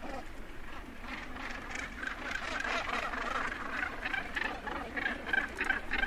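Northern gannets calling at the edge of a breeding colony: many short calls overlapping in quick succession, growing denser after the first couple of seconds.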